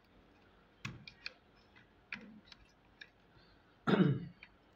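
Light plastic clicks and taps as a 9-volt-style battery is fitted into a plug-and-play kit's power module and handled on a tabletop, with a brief, louder vocal sound about four seconds in.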